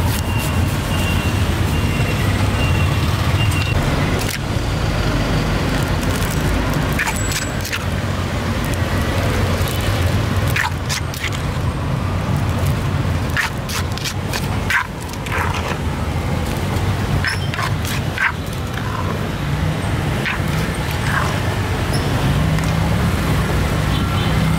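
Street traffic: a steady low engine rumble from vehicles, with scattered short clicks and knocks through the middle stretch.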